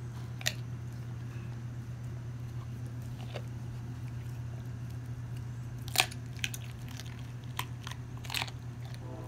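A dog chewing a raw chicken leg quarter, with a few sharp crunches of bone, the loudest about six seconds in, over a steady low hum.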